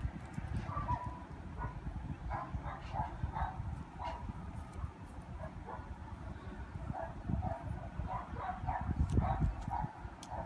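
A dog barking in quick runs of short, high yaps, over a low rumble on the microphone.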